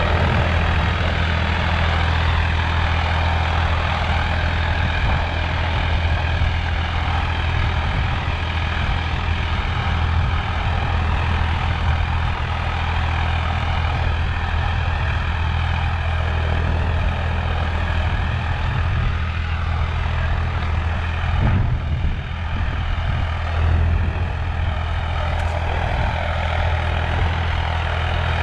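Diesel tractor engine running steadily, a low even hum.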